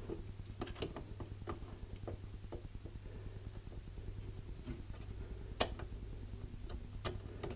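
Light plastic clicks and taps from a desktop motherboard's memory slot as its retaining tabs are opened and the RAM module is handled and lined up, with one sharper click a little past the middle.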